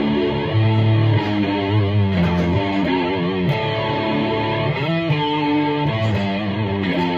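Squier electric guitar in drop D tuning, played through a Marshall 50-watt amplifier with its built-in flanger on. It plays a run of single notes and chords, some held with a wavering pitch, under the sweeping flange.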